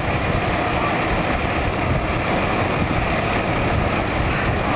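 Heavy vehicle engine idling steadily, a constant deep rumble that does not change in pace.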